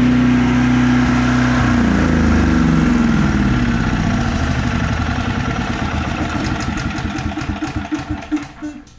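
Briggs & Stratton Elite 8000 portable generator's engine running steadily, then shut off about two seconds in: its note falls and breaks into slower and slower pulses as it coasts to a stop near the end.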